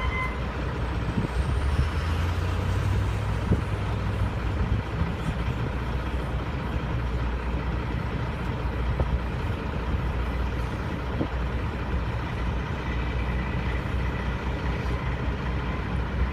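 Diesel engine of a semi tractor-trailer running steadily at low speed, a low drone.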